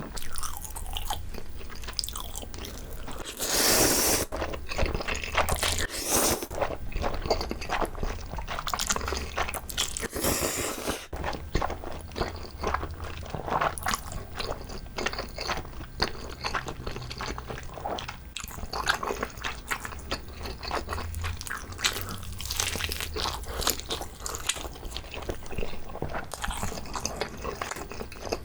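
Close-miked eating sounds of whole braised pig's trotter (jokbal): biting, chewing and smacking with many small clicks, with a few louder, longer bursts about 4, 6 and 10 seconds in.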